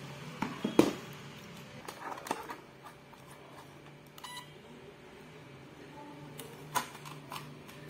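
Sharp plastic clicks and taps as a small RC car and its pistol-grip transmitter are handled on a table, with one short electronic beep about four seconds in.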